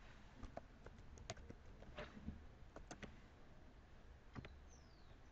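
Faint, irregular keystrokes and clicks of a computer keyboard and mouse as text is typed into a form.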